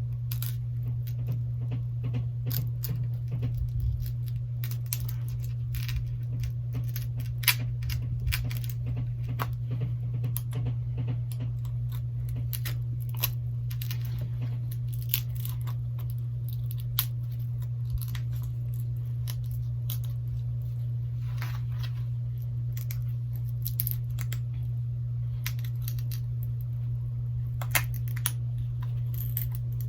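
Pry tool working along the edge of a Galaxy Note 8's heat-loosened back glass: scattered scrapes and clicks, with a few sharper ticks, over a steady low hum.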